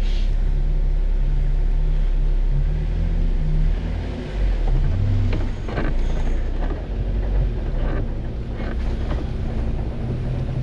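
Jeep Wrangler engine running at a low crawl over rocky ground, a steady low drone that shifts a little in pitch. A few sharp knocks come about six seconds in and again near nine seconds.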